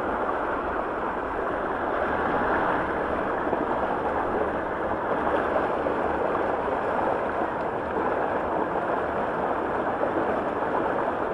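Steady rush of flowing water on a waterslide, an even noise with no breaks.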